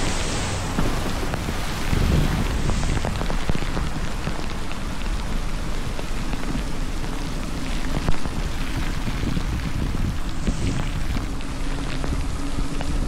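Steady rain falling and spattering on the camera, with many small drop hits over a steady low rumble, and a single louder knock about 8 seconds in.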